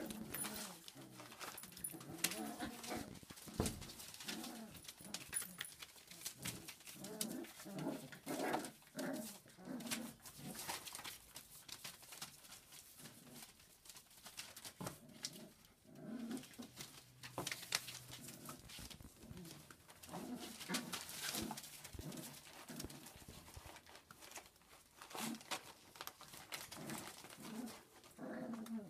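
Cockapoo puppies (Show Cocker x Miniature Poodle) making many short, low pitched calls one after another, with scattered clicks in between.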